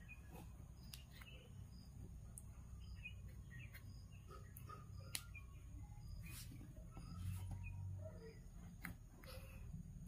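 Faint handling sounds of soft macrame cord being pulled and knotted by hand, with a few light clicks over a low room hum.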